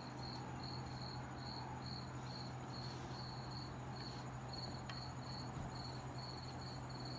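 A cricket chirping steadily in the background, short high chirps at about two a second, over a steady low hum.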